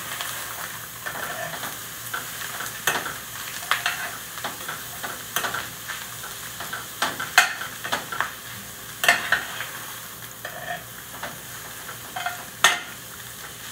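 Shredded beef with chopped onion, garlic and serrano chili frying and sizzling steadily in a pan as the onion softens, while a utensil stirs and scrapes the pan with irregular clacks.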